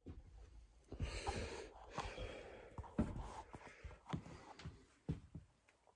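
Faint rustling and a scattering of soft knocks and clicks from a phone being handled and carried over to clear plastic storage tubs.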